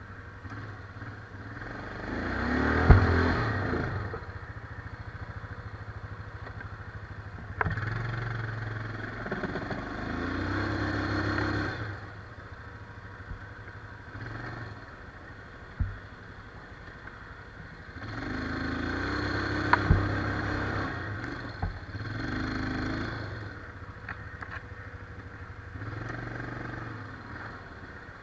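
Quad (ATV) engine pulling through a deep muddy rut, revving up in four long swells between lower running. Sharp knocks and clatter from the machine jolting through the ruts come in between.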